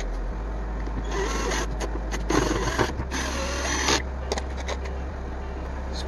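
Cordless drill-driver on a low clutch setting, running in several short bursts between about one and four seconds in as it drives a screw into a deep hole that is slow to catch its thread.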